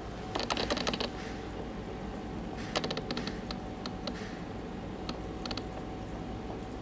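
Steady mechanical hum of aquarium equipment with a faint held tone, broken by irregular clusters of light, sharp clicks and taps: a quick run about half a second in, another around three seconds, and a few single clicks after that.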